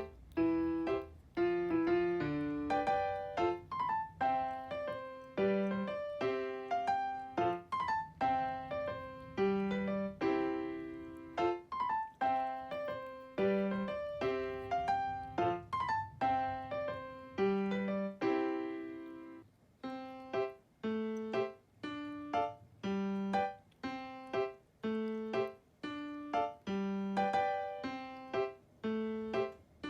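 Background piano music: a light, bouncy melody of short notes over a repeating bass note.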